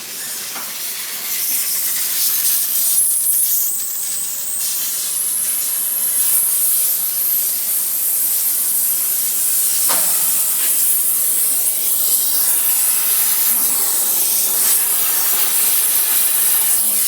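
A metalworking torch hissing steadily; it builds up over the first couple of seconds and then holds, with a single sharp tap about ten seconds in.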